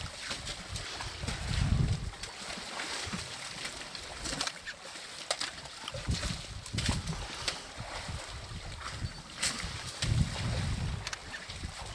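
Muddy water sloshing and splashing as elephants wade and drink in a shallow waterhole, with a few short splashes. Low rumbles swell up about two seconds in, again midway and near the end.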